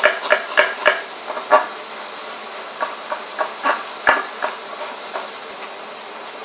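Kitchen knife chopping an onion on a wooden cutting board: quick regular strokes about four a second, then slower scattered cuts after about a second. Under it, a steady sizzle of habanero peppers frying in oil in a pot.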